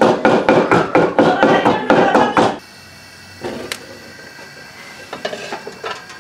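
Wooden pestle pounding in a heavy mortar, about four strokes a second. The pounding stops suddenly about two and a half seconds in. Then comes a faint steady gas-burner hiss, with a sharp click and a few light knocks near the end as a wok is set on the burner grate.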